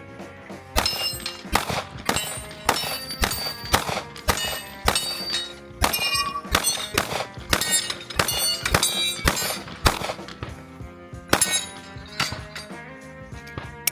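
A fast string of about twenty gunshots, many followed by steel targets ringing when hit, with music playing underneath. It is a shooter running a timed course of fire on steel plates.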